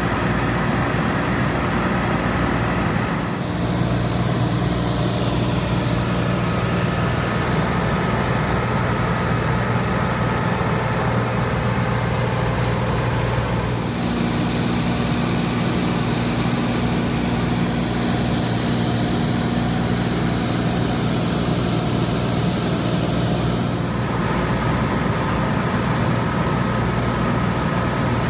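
Cessna 182's piston engine and propeller droning steadily, heard from inside the cabin, with a constant low hum and rushing air noise. The hissy upper part of the sound shifts around 4, 14 and 24 seconds in.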